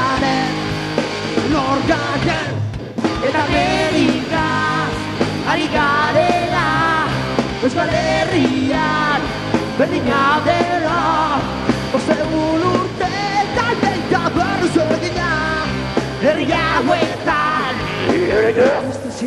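Live punk rock band playing electric guitars and drums with a sung lead vocal over them; the music stops briefly just before three seconds in, then carries on.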